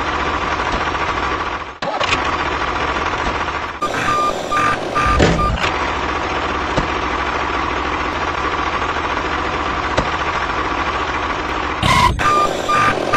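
A construction vehicle's engine running steadily, with a row of short reversing beeps about four seconds in and again near the end.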